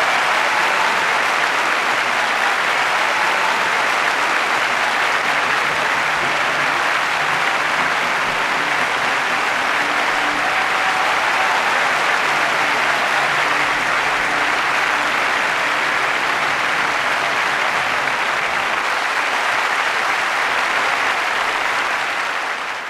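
Audience applauding steadily, fading out right at the end.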